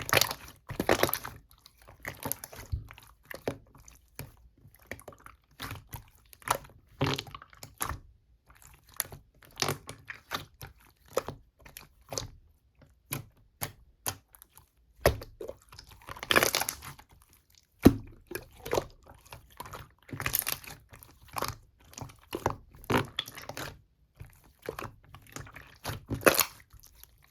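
Hands playing with slime, working it to make a dense, irregular run of short sticky clicks and pops.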